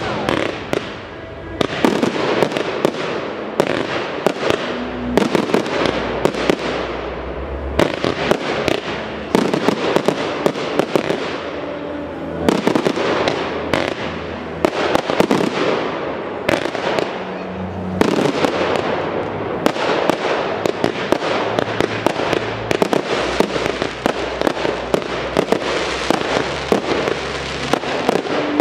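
Fireworks display: aerial shells launching and bursting in a rapid, continuous string of dozens of sharp bangs.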